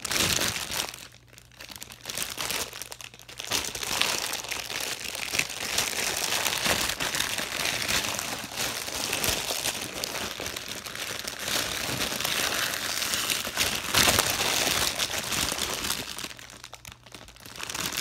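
Plastic wrapping of a pop-it fidget toy being crinkled and torn open by hand, a dense continuous crackling that pauses briefly near the start and again near the end.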